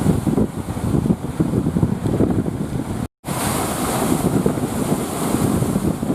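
Strong wind buffeting the microphone over the rush of sea surf, in uneven gusts. The sound drops out completely for an instant about halfway through.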